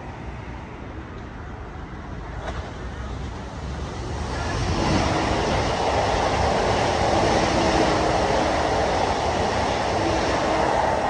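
Electric multiple unit passing beneath, its running noise building from about four seconds in and staying loud, with a faint steady hum underneath.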